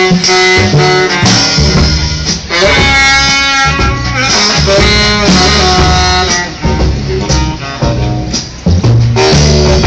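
Live swing band playing an instrumental break, with a plucked upright bass and a drum kit under a melodic lead line.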